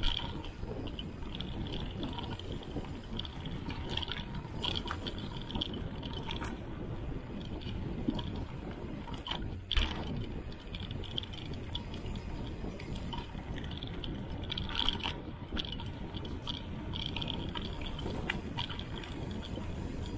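Mountain bike riding fast down a dirt singletrack: steady rumble of the tyres on the trail and wind on the microphone, with sharp clicks and rattles from the bike over bumps and roots, the loudest knock about halfway through.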